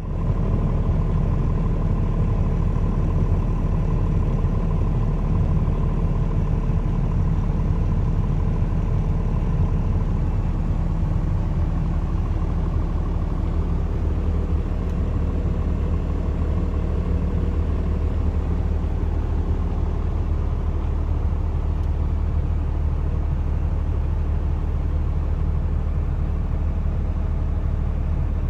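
Old Dodge diesel truck engine running steadily at a constant speed, with a deep, even rumble and rattle. It comes up to full level right at the start.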